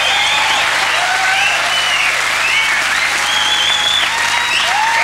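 Studio audience applauding steadily, with voices calling out and cheering over the clapping.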